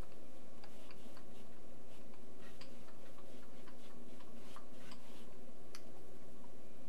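Scattered light clicks and taps from a wide paintbrush being worked on an acrylic palette and canvas, coming at uneven intervals over a steady low hum.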